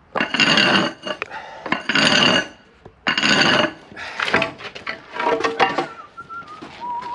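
A hand-held metal tool scraping and scoring a line into a concrete slab along a timber straightedge, in about three long strokes and then a run of shorter scratches.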